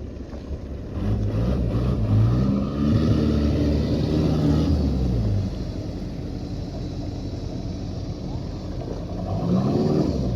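Motor vehicle engine revving under load, climbing in pitch and then dropping away over a few seconds, then running more quietly before revving up again near the end.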